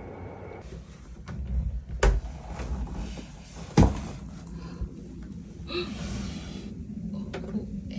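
Two sharp knocks about two seconds and four seconds in, with some low rumbling and faint handling noises in between.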